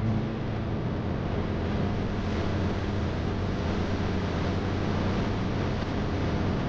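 ATV engine running steadily while riding, with wind rushing over the microphone.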